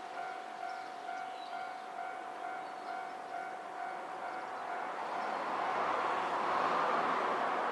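Level-crossing warning alarm ringing, a repeated electronic 'kan-kan' tone about twice a second, which stops about five seconds in. A rushing noise then grows louder.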